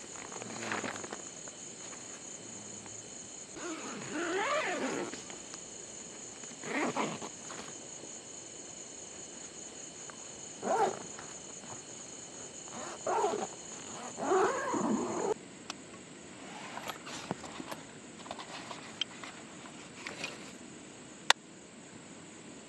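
Night insects such as crickets chirring steadily, with about five short, louder sounds of unclear source a few seconds apart over them. The insect sound drops away about two-thirds of the way through, and two sharp clicks come near the end.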